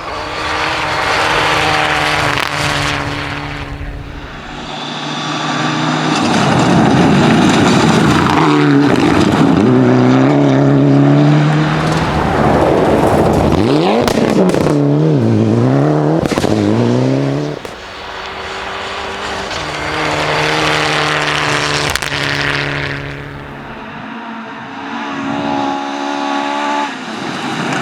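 Rally cars driven hard on forest stages: engines revving high, dropping and picking up again through gear changes and braking as they pass. The sound cuts abruptly between several separate passes, about four, eighteen and twenty-four seconds in.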